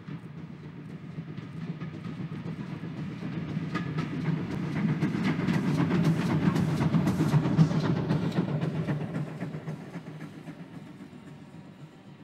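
GWR 14xx class 0-4-2 tank engine 1450 and its auto coach running past, the steam engine and wheel clatter on the rails building to a peak about six to eight seconds in, then fading as the train goes away.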